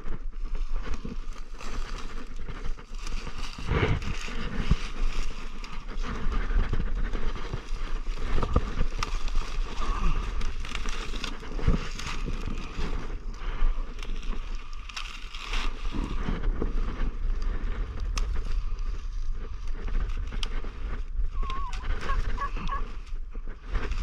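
Dry brush and grass rustling, crackling and snapping as it is pulled and broken off by hand, with a steady low rumble of wind on the microphone.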